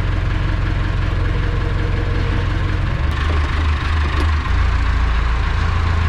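Tractor diesel engine running steadily at idle, heard from inside the cab as the weed sprayer's boom is folded; its low drone shifts a little about three seconds in.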